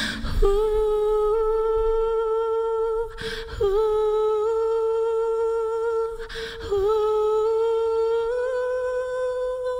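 A woman humming live into a microphone: three long held notes of about three seconds each, with a short breath between them, the last one lifting slightly in pitch.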